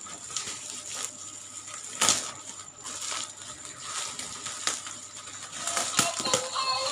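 Handling noise from unpacking a plastic toy: scattered clicks and rustles with one loud knock about two seconds in. Near the end the toy begins playing a beeping electronic tune.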